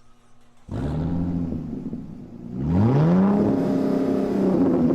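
A vehicle engine comes in suddenly under a second in and runs steadily. About two and a half seconds in it revs up with a rising pitch and holds there, louder.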